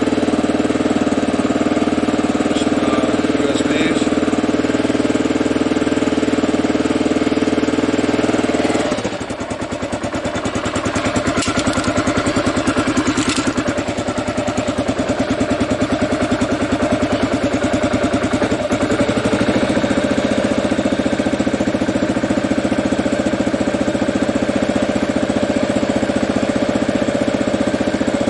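Kawasaki KLR650's single-cylinder four-stroke engine running at idle after a jump start from a dead battery. About nine seconds in the sound changes: a steady hum gives way to a rapid, even pulsing that continues.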